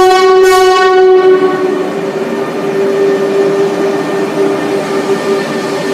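Train at a station giving out a loud, steady pitched tone that starts suddenly. The tone is rich and full for about the first second and a half, then thins to a single steady note over a rumble.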